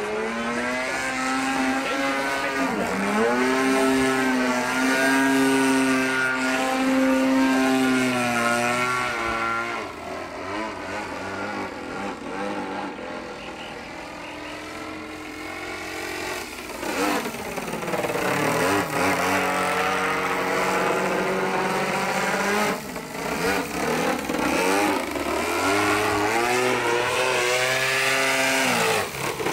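Gasoline engine of a large radio-controlled aerobatic plane in flight, its pitch rising and falling with the throttle through the manoeuvres. It grows quieter and lower for a few seconds mid-way, then climbs steeply and stays high, dipping and rising again near the end.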